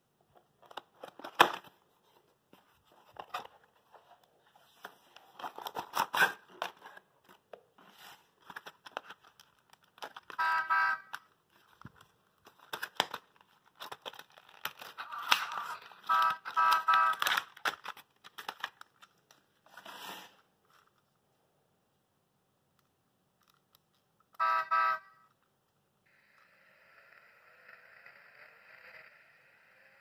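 Cardboard packaging crinkling and tearing as a small toy sound module is unboxed, with short electronic horn beeps from the BIG easy-touch module three times as its buttons get pressed.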